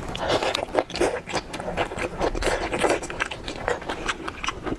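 A person eating seafood close to the microphone: biting and chewing, with many quick sharp clicks and scraping noises.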